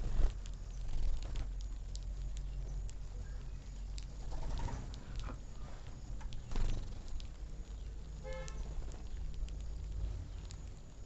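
Outdoor ambience with a steady low rumble, scattered short bird chirps, and a brief horn toot about eight seconds in.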